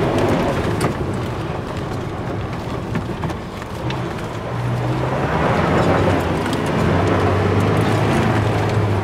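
Volkswagen Amarok pickup with a 2.0-litre engine driving over a bumpy dirt road, heard from inside the cab: a low engine hum over tyre and road noise, with scattered knocks and rattles from the potholes. About halfway through the engine note drops in pitch and gets louder.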